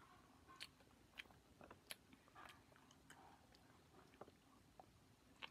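Faint chewing of a sour Starburst gummy, heard as soft, irregular mouth clicks about every half second to second.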